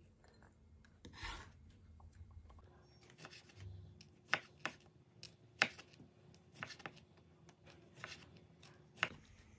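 Chef's knife halving cherry tomatoes on a bamboo cutting board: a run of sharp, irregular knocks of the blade against the wood, from about four seconds in. A brief rustling scrape comes about a second in.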